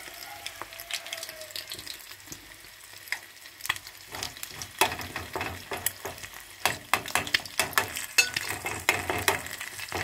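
Eggs frying in hot oil in a steel pan, sizzling and crackling with sharp pops and spits, while a metal spoon moves through the pan. The popping grows busier and louder from about halfway in.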